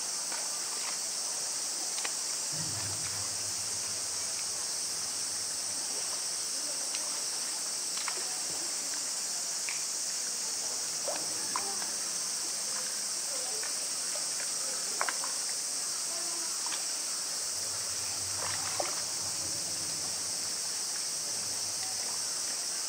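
A steady high-pitched chorus of cicadas, with scattered faint clicks and small splashes of water.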